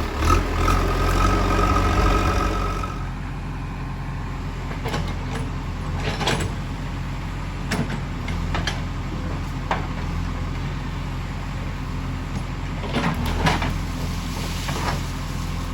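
JCB 3DX backhoe loader's diesel engine running, louder with a whine for the first three seconds and then settling to a steady lower run. Scattered sharp knocks and clanks come over it.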